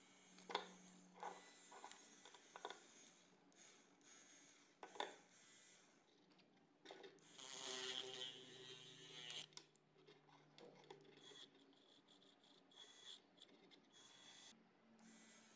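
Quiet handling of small plastic parts on a tabletop: scattered light clicks and taps, with a louder scraping rustle lasting about two seconds a little past the middle.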